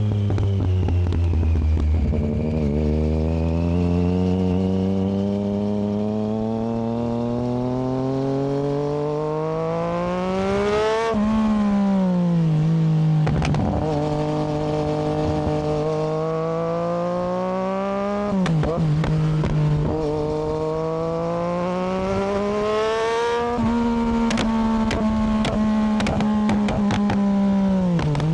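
Triumph Daytona 675R's inline three-cylinder engine pulling hard through the gears. The revs climb steadily and drop back at upshifts about 11, 18 and 23 seconds in, then hold fairly level. Near the end there is a run of sharp exhaust crackles.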